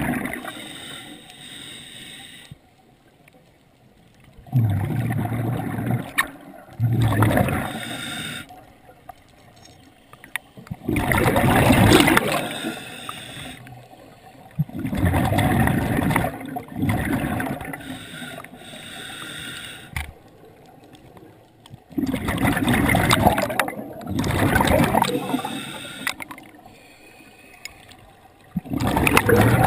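Scuba regulator breathing close to the microphone: loud gurgling bursts of exhaled bubbles every few seconds, with quieter stretches between them as the diver breathes in.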